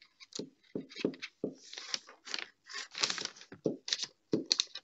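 Glue stick rubbed across a sheet of paper in a quick series of short scraping strokes, with the paper rustling under the hands.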